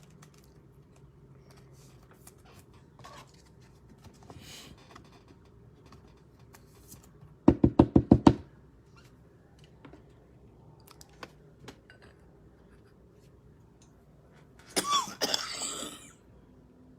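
A fast run of about six loud knocks halfway through, then a brief rustling burst with a short squeak near the end, over quiet handling noise.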